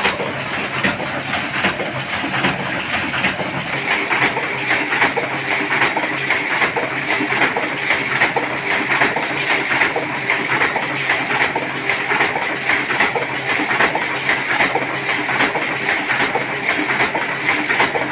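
1970 Heidelberg GTO 52 sheet-fed offset printing press running steadily, its mechanism making a fast, even clatter.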